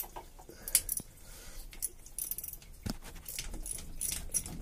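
Scattered light metallic clinks and taps at an irregular pace, with one heavier knock about three seconds in: a small socket drive and wrench being worked against a MerCruiser V8's engine block to reach its drain plug.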